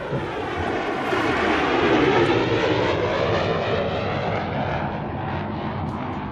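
Aircraft passing overhead: engine noise swells to a peak about two seconds in, then slowly fades, with a sweeping whoosh as it goes by.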